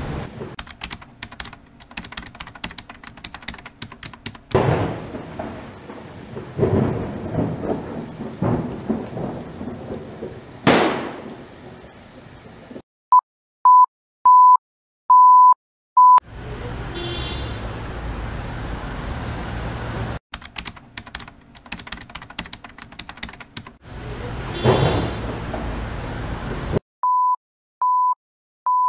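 Crackling, rain-like noise with low rumbles, broken about halfway through by a run of five short electronic beeps at one steady pitch. The crackle returns and three more of the same beeps come near the end.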